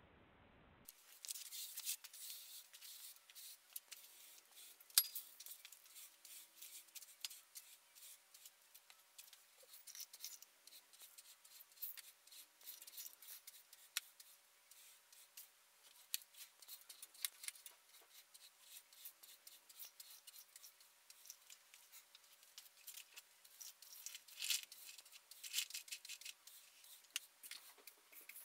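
Broom sweeping a concrete floor, the bristles scratching along and pushing small metal and glass fragments of shot-up watches in a run of quick, faint brushing strokes with tiny clinks.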